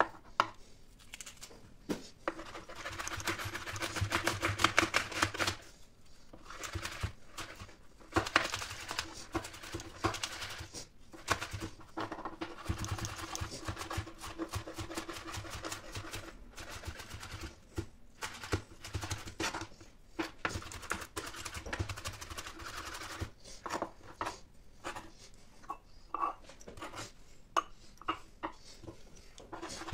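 Large kitchen knife slicing raw chicken breast on a plastic cutting board: irregular cutting strokes and knocks of the blade against the board, with a faint low steady hum beneath.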